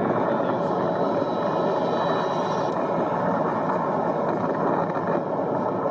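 Tornado winds heard through a doorbell camera's microphone: a loud, steady, dense rush of wind noise.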